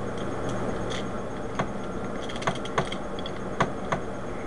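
Plastic clicks and clacks of Rubik's Cube pieces being handled and pressed into a partly reassembled cube: several sharp clicks at uneven intervals, over a steady low hum.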